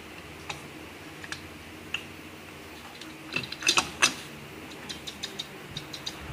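Metal clutch plates of a Nissan RE4R01A automatic transmission clinking and clicking as they are fitted by hand into the transmission case. Scattered light clicks, a louder cluster of clinks a little past halfway, then a quick run of light ticks near the end.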